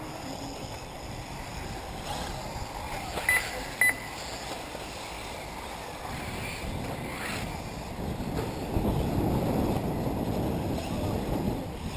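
Wind buffeting the microphone at a race track, growing stronger about two-thirds of the way through. A little over three seconds in, two short high electronic beeps, typical of an RC race's lap-timing system as a car crosses the line.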